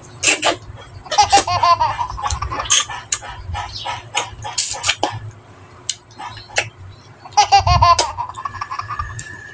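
Close-miked mouth sounds of someone eating fish by hand: sharp smacks and sucking clicks. Twice, about a second in and again about seven seconds in, a high-pitched laughing voice like a small child's comes in for a second or so.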